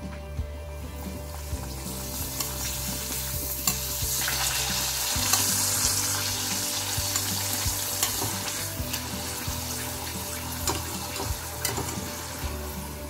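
Appalam (papad) sizzling as it fries in hot oil in a stainless steel pan; the sizzle grows louder about four seconds in and then eases off. Metal tongs click lightly against the pan a few times.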